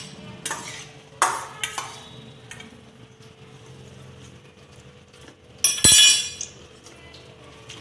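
Metal kitchen utensils and pots clinking and clattering while boiled drumstick pieces are added to a pot of curry: a few sharp clinks in the first two seconds, then one loud ringing clang about six seconds in.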